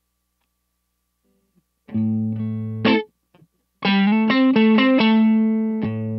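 Fender Stratocaster electric guitar played through a DOD Overdrive Preamp 250 pedal, which is switched on and adding overdrive. After about two seconds of silence comes a held chord with a short stab, then a quick run of notes and another ringing chord.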